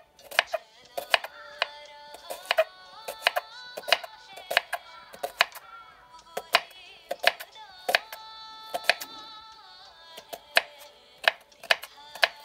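A kitchen knife slicing red onion on a wooden chopping board, the blade knocking sharply on the board about twice a second in an uneven rhythm, over background music.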